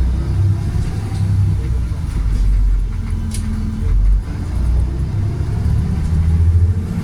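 Volvo B7RLE bus's 7-litre six-cylinder diesel engine running with a deep, steady rumble, driving through its Voith automatic gearbox, with a short sharp click about three seconds in.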